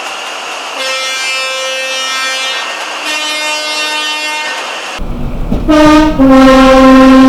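Train two-tone air horns: two quieter horn soundings, then, after a sudden change about five seconds in, a loud horn blowing a short high note followed by a longer low note.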